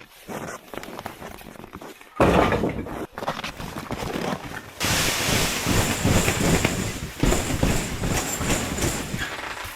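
Wood fire of old lumber burning in a tent stove: a dense crackling rush that starts suddenly about two seconds in and grows louder about halfway through.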